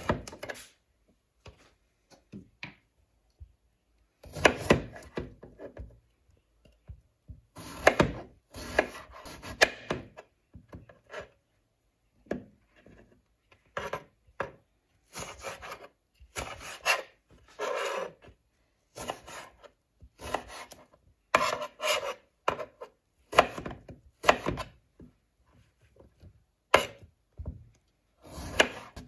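Kitchen knife slicing eggplant into sticks on a wooden cutting board: short runs of cuts, the blade knocking on the board, separated by brief pauses.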